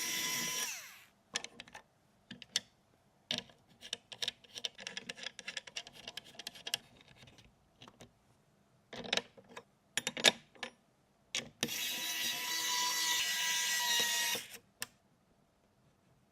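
Small plastic and metal clicks and knocks of computer parts being handled and fitted during a PC build, with a steady electric whirr for about three seconds near the end.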